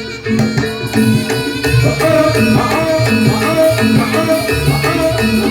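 Javanese gamelan music accompanying a barongan dance: hand drums beating with tuned metal percussion playing a repeating pattern of short notes, filling out again about a second in after a brief dip.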